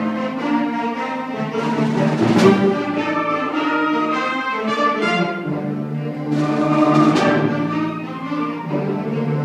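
Concert band of woodwinds, brass and percussion playing sustained full chords, with sudden crashing accents about two seconds in and again about seven seconds in.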